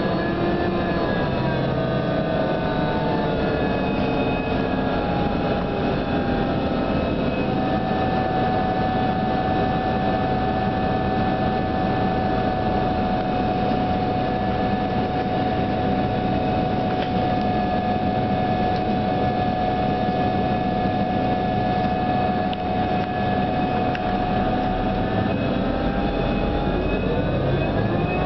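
New Flyer DE42LFA diesel-electric hybrid bus drivetrain heard from inside the bus: a whine of several stacked tones over a steady running noise. The whine falls in pitch as the bus slows at the start, holds one steady pitch for a long stretch, then climbs again near the end as the bus speeds up.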